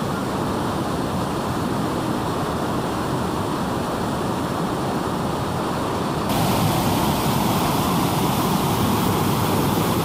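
Steady rush of a 50-metre waterfall and its stream pouring over boulders. About six seconds in the rush becomes louder and brighter, as fast white water over the boulders is heard close by.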